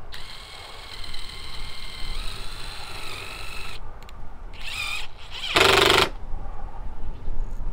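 Cordless drill/driver driving a screw down through an asphalt roof shingle: a steady motor whine for about four seconds that drops in pitch about two seconds in as the screw bites, then a second short run. A brief loud burst about six seconds in is the loudest sound.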